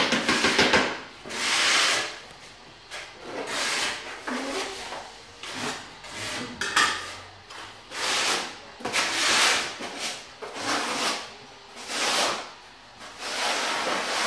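Steel notched trowel scraping over a concrete floor, spreading and combing tile adhesive in repeated strokes, roughly one a second.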